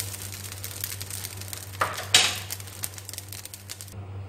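Spatula and spoon stirring and scraping fried rice in a hot pan, a rapid run of scrapes over a light frying sizzle, with two louder scrapes about two seconds in. The stirring stops shortly before the end.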